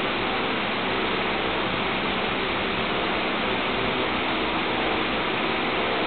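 Steady, even rushing noise like static, with no music or voice.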